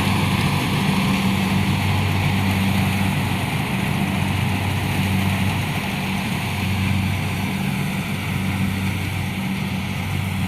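Kubota combine harvester's diesel engine running steadily with a low, even hum while harvesting rice.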